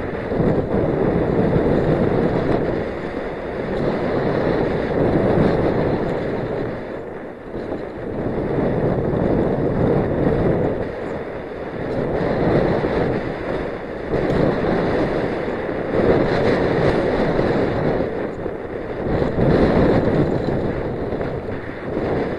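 Wind buffeting the microphone of a camera on a downhill mountain bike at speed, mixed with the rush of tyres on a dirt trail, swelling and easing every few seconds.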